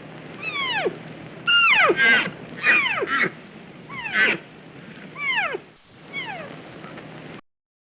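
Deer calling: a series of about eight short, high calls, each falling steeply in pitch, over a steady background hiss.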